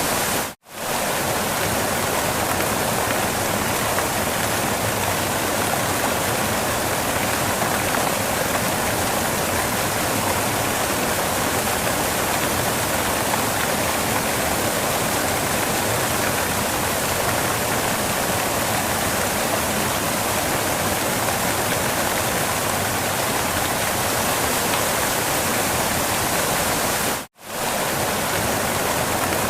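Steady rushing of a waterfall, an even wash of falling water with no tones in it. The sound drops out to near silence for a moment twice, about half a second in and again near the end.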